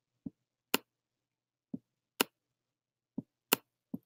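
Four pairs of short clicks from a computer pointing device as pen strokes are drawn on screen, each a dull low knock followed about half a second later by a sharper, brighter click, with near silence between them.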